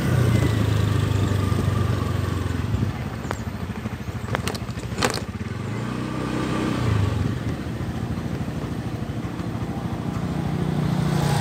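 Motorcycle engine running at low speed, its pitch easing off and picking up again, with a few sharp clicks or knocks a few seconds in.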